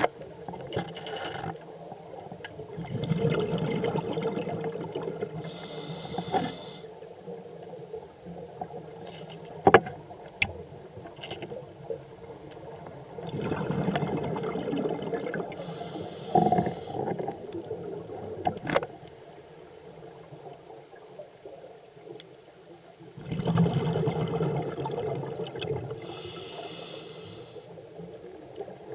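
A scuba diver breathing through a regulator underwater: three slow breath cycles about ten seconds apart, each a swell of bubbling exhaled air followed by a short hiss. A few sharp clicks fall between the breaths.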